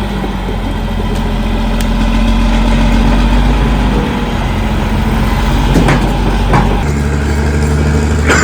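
Caterpillar D6R XL crawler bulldozer's diesel engine running steadily at work, its note shifting about four seconds in and again near seven seconds. Two short knocks come around six seconds in.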